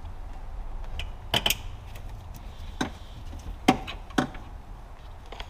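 About six scattered clicks and knocks of hardware and trim parts being handled and fitted back into place, two of them close together in quick succession, over a low steady hum.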